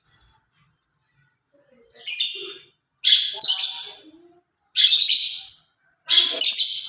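Lovebird calling: a run of short, shrill, harsh chirps, each under a second long, coming in bunches with brief silences between.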